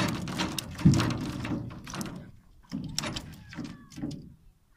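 A series of knocks and thuds on a small boat, the loudest about a second in, followed by several lighter knocks.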